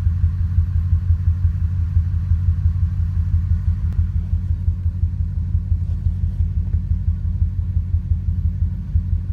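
Ford 5.4-litre two-valve V8 truck engine idling roughly, its low exhaust pulses uneven: a rough idle that sets no trouble codes, after earlier misfires on bank 2.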